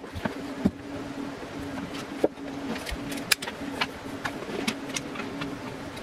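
Scattered clicks and light knocks from handling and fitting a metal scissor-arm microphone boom stand and its shock mount, over a steady low hum.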